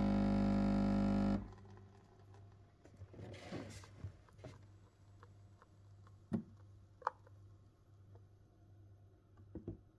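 Capsule coffee machine's pump buzzing steadily as it brews, cutting off abruptly about a second and a half in. After that come a few faint clicks and knocks.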